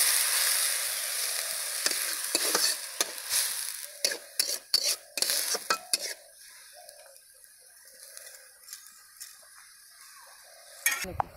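Water hissing and sizzling in hot oil in a steel kadai with small dried fish, dying down over the first several seconds. A steel spatula clinks and scrapes against the pan as the fish is stirred, and a short knock comes near the end.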